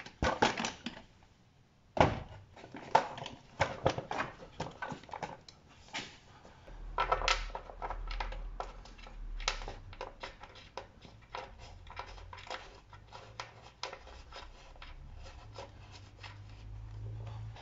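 Plastic air filter housing being handled and seated over a carburettor: a run of irregular knocks, clicks and scrapes, the sharpest about two seconds in.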